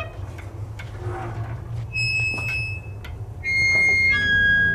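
Background music: three high, held notes, each lower than the last, over a steady low drone.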